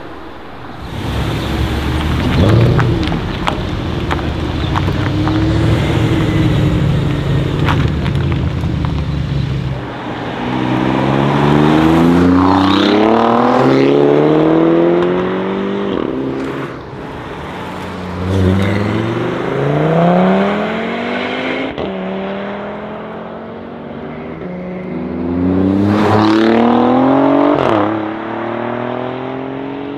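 Alfa Romeo Giulia Quadrifoglio's 2.9-litre twin-turbo V6 exhaust under hard acceleration, loud throughout. It starts as a low, rough rumble for the first several seconds, then gives three full-throttle pulls with the engine note climbing steeply through each gear and dropping back at the upshifts.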